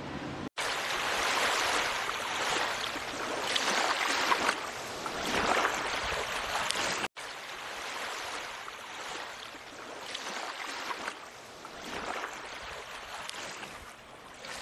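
Small waves washing over a rocky shore: a rushing hiss of water that swells and eases every few seconds, cutting out for an instant twice.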